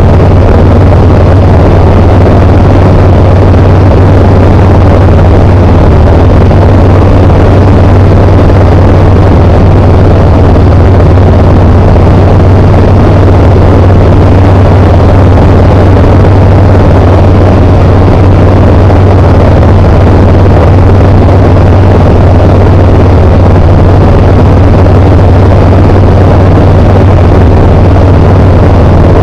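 Tecnam P92 Echo Super ultralight's engine and propeller running steadily in flight, a constant loud low drone that holds the same pitch throughout.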